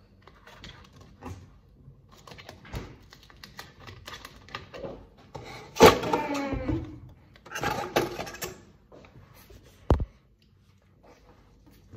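Scattered knocks, clicks and clatter of objects being handled in a small room, with a loud wavering squeal-like sound about six seconds in and a sharp thump near ten seconds.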